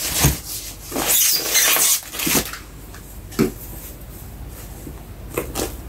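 Rustling and scraping of a pebble-leather handbag being handled and turned onto its side, busiest in the first two seconds or so, then a few soft knocks.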